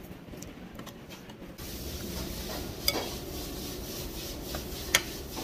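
Eating sounds: metal spoons and forks scraping and stirring in a ceramic bowl, with two sharp clinks about three and five seconds in.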